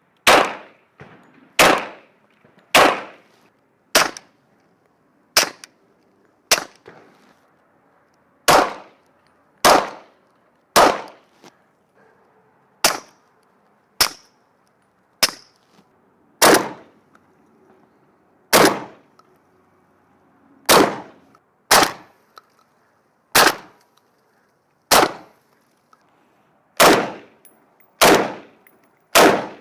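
A string of about twenty single gunshots from firearms on a test range, one every one to two seconds, each with a short ringing tail.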